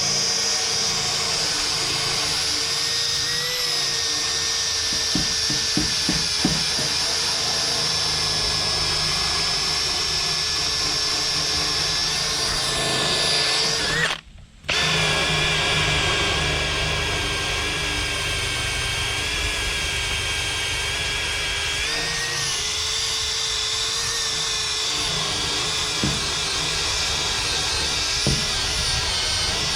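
Power drill running steadily with a whining motor tone, used to strip paint off an aluminum boat hull. It stops for under a second about halfway through, then starts again.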